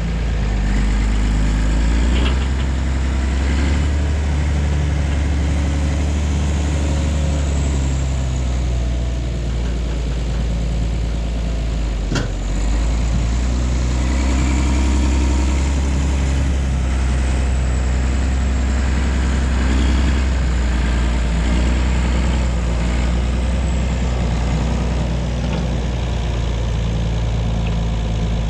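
Large diesel tractor engine running steadily, with a single sharp click about twelve seconds in.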